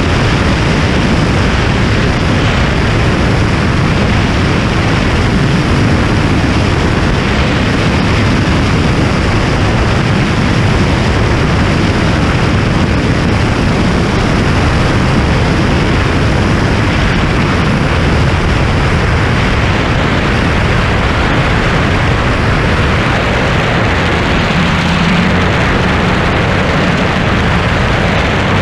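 Light homebuilt airplane in level flight: steady engine drone under a heavy rush of wind on the camera microphone.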